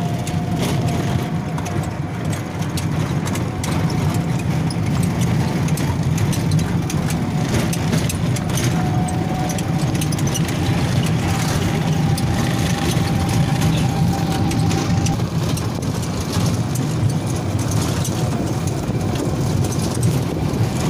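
Engine and road noise of a moving vehicle heard from on board: a steady low rumble, with a faint thin whine that comes and goes.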